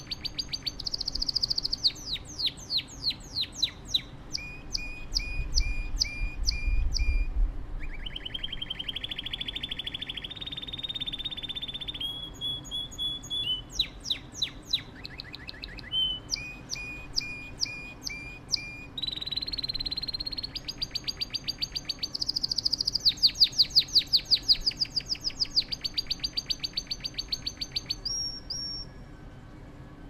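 Domestic canary singing: a long song made of rapid trills and fast runs of repeated notes, each run at a different pitch, stopping near the end.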